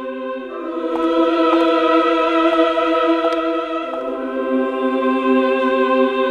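Horror background score of sustained, choir-like voices holding chords, which shift about half a second in and again near four seconds.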